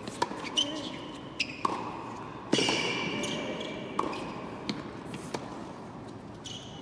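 A tennis rally: the ball is struck by rackets and bounces on the court, heard as sharp pops every half second to a second, with a few high squeaks from players' shoes. The loudest hit comes about two and a half seconds in, with a ringing echo in the large hall.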